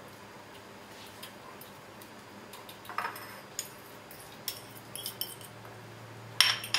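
Scattered light clinks and scrapes of a fork against glass dishes as mashed banana is scraped off a glass plate into a glass mixing bowl, with a sharper clink near the end.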